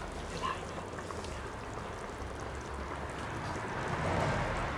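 Braising liquid simmering in a cast-iron Dutch oven, a steady bubbling that grows a little louder in the second half, as beef rouladen are turned in the sauce with tongs.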